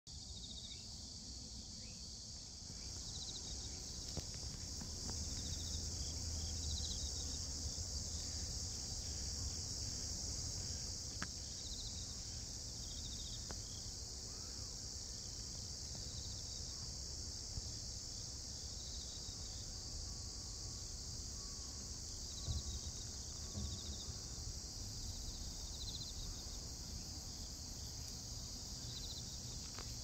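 Steady high-pitched insect chorus, with short chirps repeating every couple of seconds, over a low rumble.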